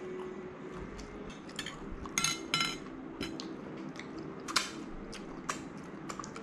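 A few sharp clinks of cutlery and crockery on a plate, with eating sounds as food is picked up and eaten with the fingers.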